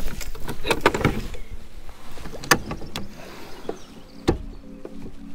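Knocks and clatter of gear being handled aboard a small fishing boat, then a steady low hum that starts about four seconds in.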